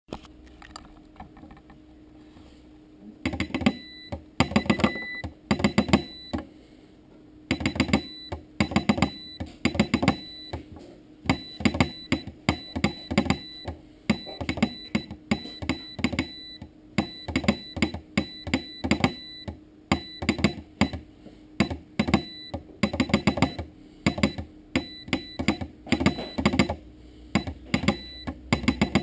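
Homemade straight Morse key being keyed by hand, its contacts clicking in quick irregular groups like Morse characters, with short pauses between groups. The sending starts about three seconds in.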